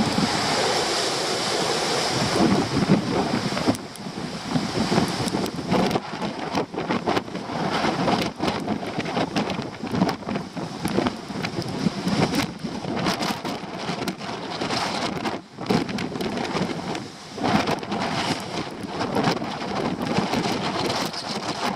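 Typhoon wind gusting with rain, the gusts buffeting the microphone in repeated rumbling knocks that rise and fall in strength.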